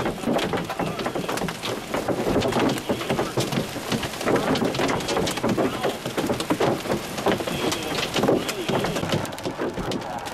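Hail and heavy rain falling together: a steady hiss of rain packed with many sharp ticks of hailstones striking.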